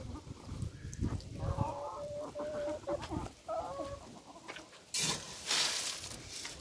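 Domestic hens clucking as they feed, one hen giving a string of drawn-out, wavering notes in the middle. A loud rushing burst cuts in about five seconds in.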